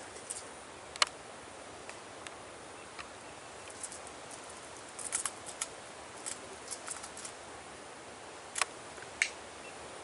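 Scattered sharp clicks and ticks over a steady hiss: one loud click about a second in, a cluster around five seconds in, and two more near the end.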